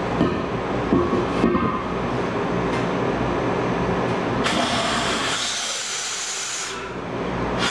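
Compressed gas blown through a hose into a split air conditioner's clogged condensate drain line to clear it. First a rushing noise with a low rumble, then about four and a half seconds in it changes abruptly to a steady high hiss.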